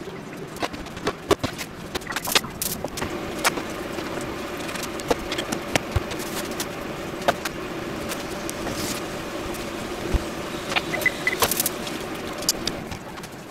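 Food sizzling in a frying pan, stirred with chopsticks that tap and scrape against the pan, over a steady hum. A cluster of sharp knocks and clatters comes in the first few seconds.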